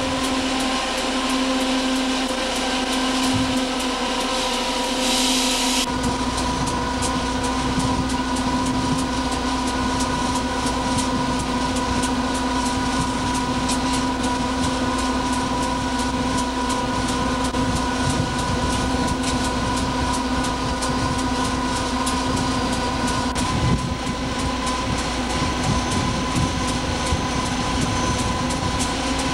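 Steady running noise inside the cab of an EMD GF6C electric locomotive under way: a continuous hum made of several held tones over a rumble of wheels on rail. A high hiss cuts off about six seconds in, after which the low rumble is stronger.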